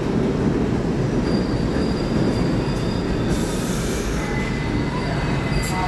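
R68 subway train rolling along the track with a steady low rumble. Thin, high wheel squeals set in about a second in, and a lower squeal joins about four seconds in.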